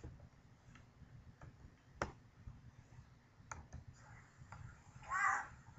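A few sharp clicks over a quiet room, the clearest about two seconds in, then a short child's vocal sound near the end.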